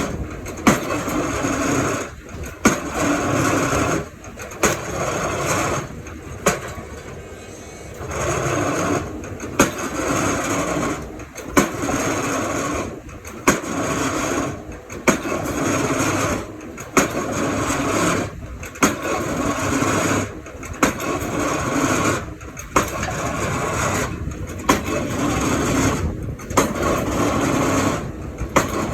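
Excavator's diesel engine running under load, with a sharp knock about every two seconds as the bucket strikes the piles down.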